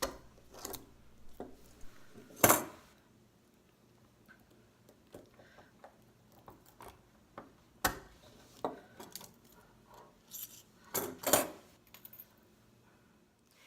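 Steel Smith & Wesson M100-1 handcuffs clinking and clicking as they are worked with a handcuff shim while worn on the wrists. Scattered small metallic clicks, with three louder clacks spread through the stretch.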